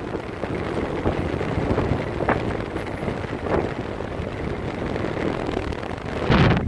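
Longtail boat engine running steadily, mixed with wind buffeting the microphone; a louder burst comes near the end.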